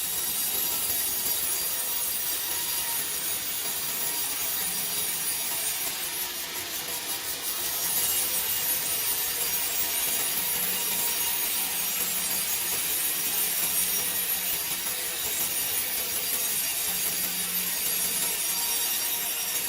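Wood being sawn, a steady cut that runs on without a break.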